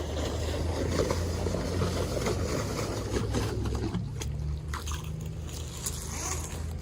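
Truck-mounted carpet-cleaning extractor sucking pond water up its vacuum hose: a gurgling slurp over the steady hum of the truck engine that drives the unit. About four seconds in the slurping drops away, leaving the hum and a few clicks, the sound of the recovery tank filling up.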